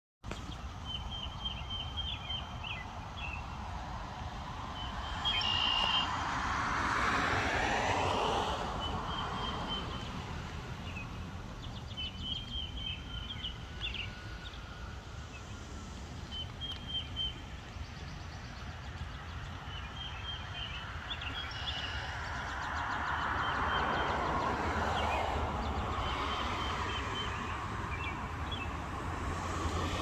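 Small birds chirping in short repeated phrases, while cars pass on the road twice, swelling and fading about five seconds in and again near the end, over a steady low rumble.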